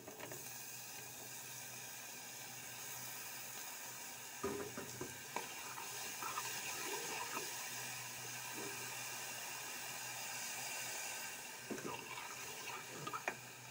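Cut jiló (scarlet eggplant) frying in hot oil with garlic and onion in a pot, a steady sizzle. A few spoon knocks against the pot as it is stirred, a few seconds in and again near the end.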